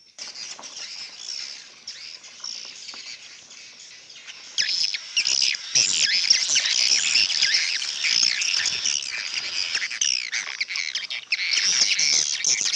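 Many edible-nest swiftlets twittering together, a dense stream of high, rapid overlapping chirps that grows louder about four and a half seconds in and dips briefly near the end.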